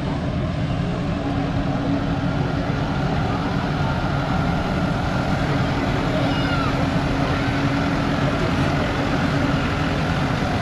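Tractor engine running steadily: a continuous low rumble with a held hum.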